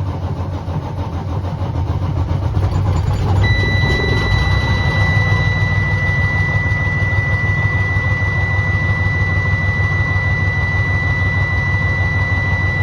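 Detroit Diesel Series 60 14-litre inline-six diesel engine in a Freightliner truck running after a hard start, getting louder about three seconds in. At the same point a steady high-pitched tone comes in and holds.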